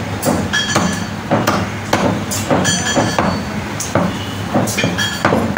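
Butcher's cleaver chopping through meat and bone in rapid, repeated blows, about two a second. Many blows have a short metallic ring.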